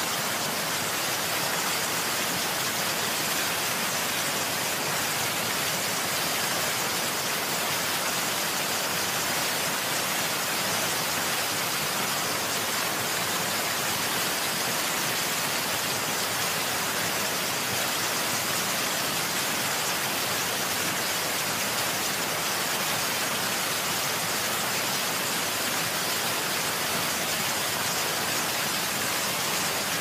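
Duduma Waterfall, a tall horsetail falls: a steady rush of falling water, even and unbroken throughout.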